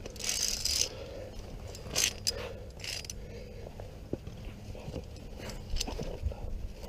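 Via ferrata lanyard carabiners and gear on the steel safety cable: a scraping rush near the start, then scattered sharp metallic clicks and knocks as the climber moves along the rock.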